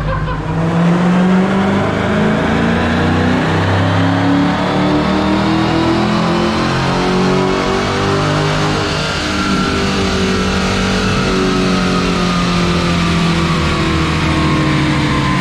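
Supercharged 6.2-litre Hemi V8 of a stock 2015 Dodge Hellcat running hard at sustained full throttle on a chassis dyno, loud and unbroken.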